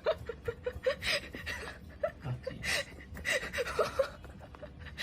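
Short breathy chuckles and gasps from a voice, coming in quick runs of brief pitched notes.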